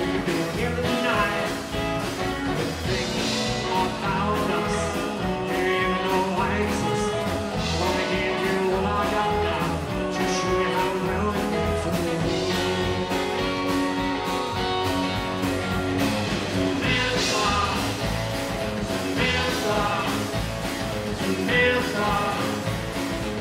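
Live rockabilly band playing a song: a man sings lead over strummed acoustic guitar, electric guitar and a drum kit keeping a steady beat.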